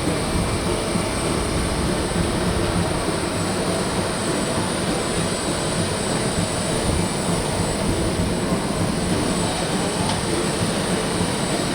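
Steady rumble and rush of engine and air noise inside a passenger jet cabin in flight.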